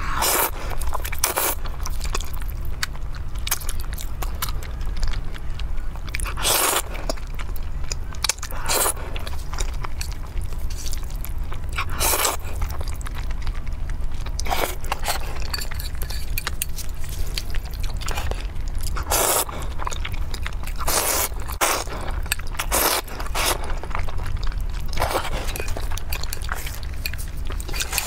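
Close-miked slurping and chewing of saucy cheese fire-chicken instant noodles, with a loud slurp every few seconds and wet chewing in between.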